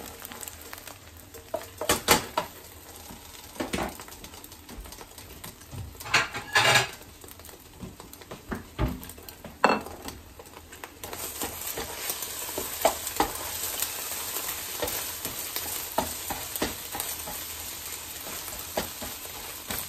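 Beaten eggs sizzling in a nonstick frying pan, with a silicone spatula scraping and knocking against the pan a few times in the first half. From about halfway through, the sizzle grows louder and steadier.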